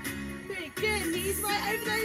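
Background music with a singer's voice over a steady beat; the voice comes in just under a second in.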